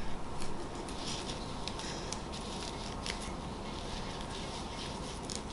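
Faint rustling and small scratchy clicks of a ribbon and pipe-cleaner stems being handled and tied into a bow by hand, over a steady background hiss.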